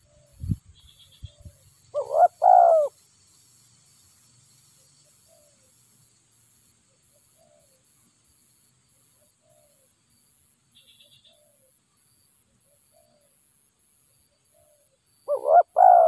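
Spotted doves cooing: a loud coo phrase of a short note and a longer one about two seconds in, repeated about thirteen seconds later, with faint soft coos between. A dull thump comes just before the first phrase.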